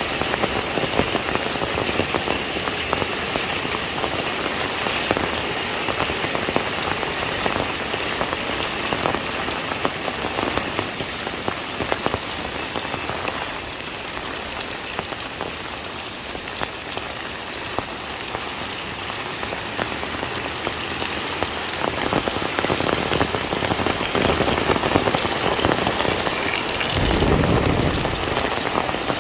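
Heavy rain falling steadily, a dense patter of drops hitting surfaces. A brief louder, deeper rush of sound swells up near the end.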